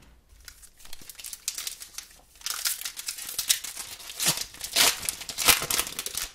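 Foil wrapper of a Pokémon booster pack crinkling in the hands and being torn open, with a few sharp rips in the last couple of seconds.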